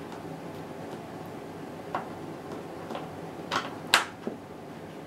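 Hands working at the bolts around a washing machine's plastic outer tub: a few scattered clicks and knocks, the sharpest one about four seconds in.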